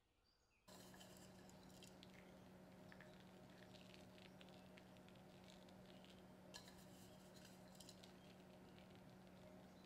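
Faint scattered light ticks and rustles of hands handling pastry dough, with a denser cluster about two thirds of the way through, over a steady low hum.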